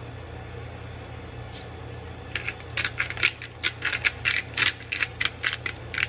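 Himalayan pink salt being dispensed from its container over raw pork, a quick run of short gritty rattles, about four a second, starting about two seconds in, over a steady low hum.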